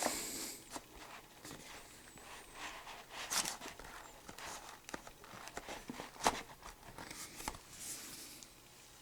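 Faint handling of a cardboard Blu-ray digibook: light rustling as its pages are turned, with a few scattered soft taps and clicks.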